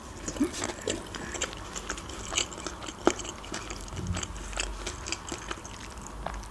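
A person biting and chewing a shawarma wrap close to the microphone, with many small mouth clicks.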